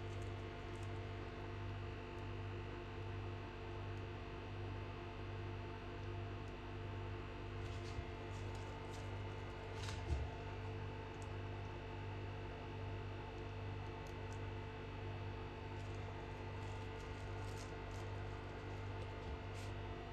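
Steady electrical hum of a running kitchen appliance, with a slow, even throb in its low note. One soft knock comes about ten seconds in, and there are a few faint ticks just before it.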